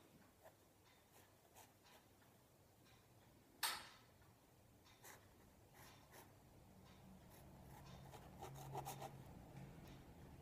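Faint scratching of a fine-tip pen drawing on sketchbook paper, with one sharper click a little under four seconds in.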